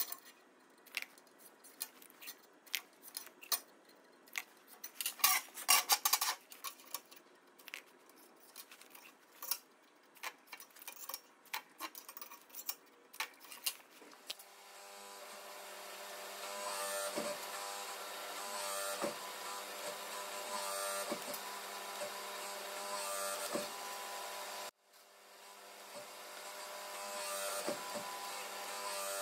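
Scraping and tapping as the end of a steel strip is marked out on a steel plate. About halfway in, a hydraulic press brake starts up and runs with a steady hum, its tone dipping every couple of seconds while the strip is fed in to press its ends before rolling.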